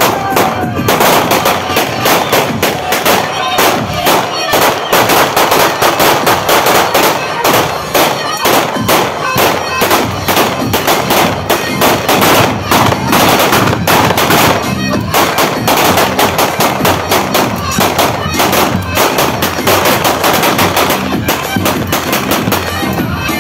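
Sustained celebratory gunfire, shot after shot several times a second with hardly a pause, over loud wedding dance music.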